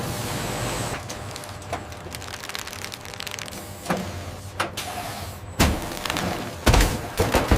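Factory machinery running with a steady hum and hiss, broken by irregular knocks and clunks that come thicker and louder in the last third.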